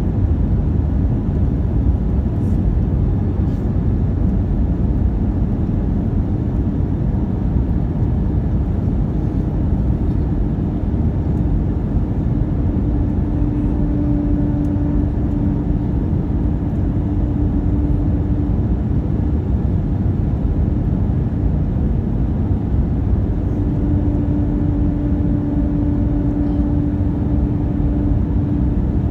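Airbus A319-132 cabin noise on descent, heard from a window seat by the wing: the steady rumble of airflow and the IAE V2500 engines. A steady hum comes in about halfway through and again near the end, each time for several seconds.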